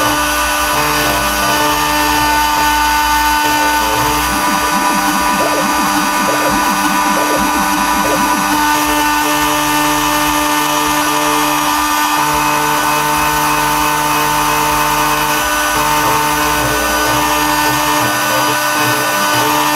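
Small CNC router's spindle motor running with a steady high whine as a fine V-bit isolation-mills a double-sided copper-clad PCB. Under it a lower hum from the axis drives keeps stopping, starting and changing pitch as the table moves.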